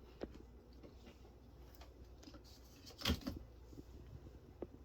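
Faint clicks and one sharper knock about three seconds in, over a steady low electrical hum and hiss in a quiet room.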